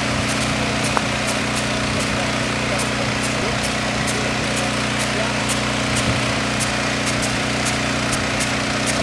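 Small engine-driven water pump running steadily at a constant pitch, feeding a high-pressure water jet, with a steady hiss of spray over it. Faint irregular high clicks come through on top.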